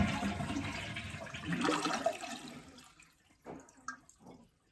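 Toilet flushing down and draining, the rush of water fading out after about three seconds. With the supply valve shut off, the tank does not refill afterwards.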